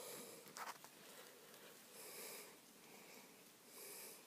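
Near silence: faint outdoor background with a few soft hisses about two seconds apart and a light click just over half a second in.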